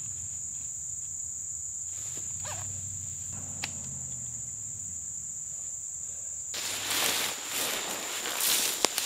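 Steady high-pitched chorus of crickets. About two thirds of the way in, loud rustling and footsteps start as someone walks through tall dry grass, louder than the insects.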